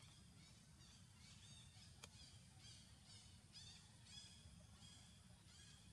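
Faint, repeated high-pitched animal calls, short chirps that each fall in pitch, about two a second, over a low steady rumble.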